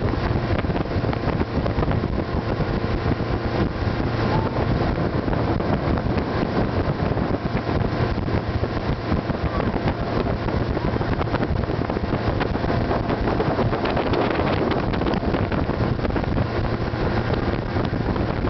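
Motorboat engine running steadily while the boat is underway, with wind buffeting the microphone.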